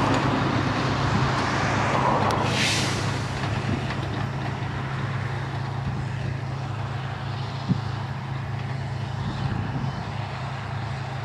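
Diesel engines of harvest machinery running steadily as a low drone, louder for the first few seconds and then easing off. A short hiss sounds about two and a half seconds in.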